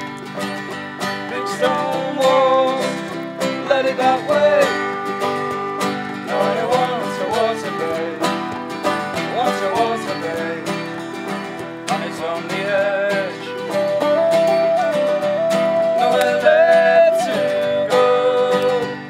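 Instrumental folk music with no singing: open-back banjo and guitar picking a steady accompaniment under a wind instrument carrying the ornamented melody over held tones.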